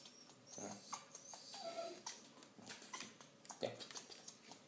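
African grey parrot's soft courtship-display noises: a string of quiet clicks with short high squeaks and a brief gliding note.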